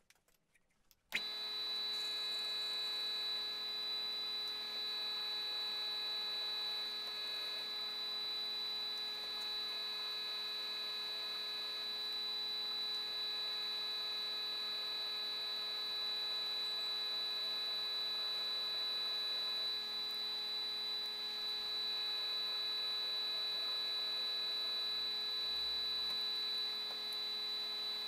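Milling machine spindle running with a steady high-pitched whine while a drill bit is fed into a grade 8 bolt. It starts abruptly about a second in.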